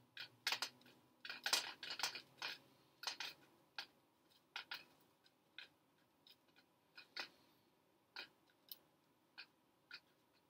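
A run of short, irregular clicks and snips from small objects being handled, close together in the first few seconds and more spaced out after.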